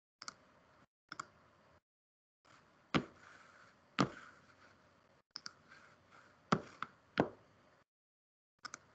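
Knocks, taps and clicks of objects being handled close to a microphone, four louder knocks standing out among lighter clicks. The sound comes through a video call, cutting in and out to dead silence between bursts of faint hiss.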